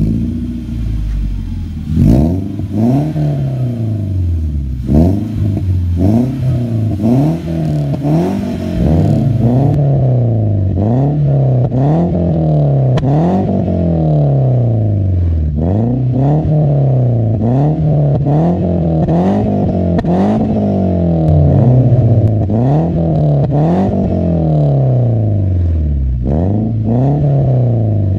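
2001 Toyota RAV4 engine with an aftermarket full exhaust system and K&N intake, free-revved again and again: a few short sharp blips at first, then repeated revs to about 5,000 rpm that fall back each time, roughly one every second or two.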